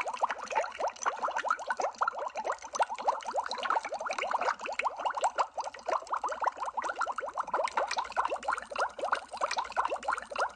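Water bubbling sound effect: a dense, steady stream of small bubbles, each a quick rising blip, running on without a break.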